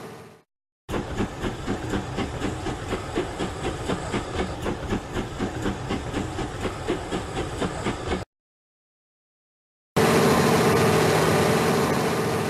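HO-scale model train running on its track. A steady hum fades out and stops; then wheels click over the rail joints in an even rhythm of about four clicks a second, which cut off suddenly. Near the end a steady hum comes back and fades away.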